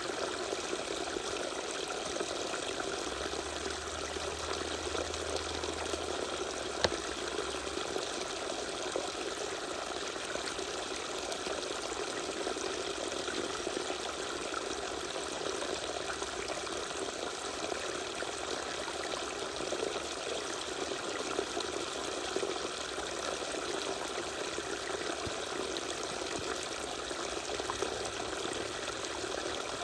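Small waterfall with water pouring and trickling steadily. There is one brief click about seven seconds in.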